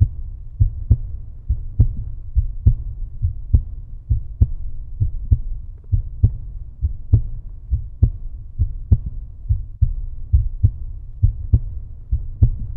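Outro music: a low, regular thumping beat, a little over two thumps a second, like a heartbeat, that cuts off abruptly.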